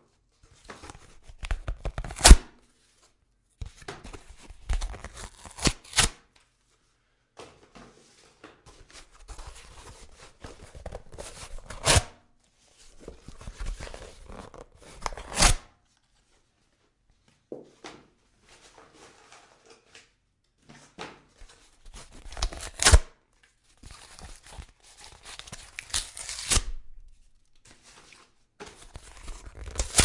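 Cardboard being torn again and again: about seven separate rips, each a rough ripping noise lasting a second or few that ends in a sharp snap, with short pauses between them.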